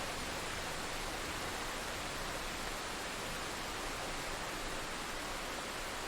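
Steady rain: an even, unbroken hiss with no separate drops or thunder standing out.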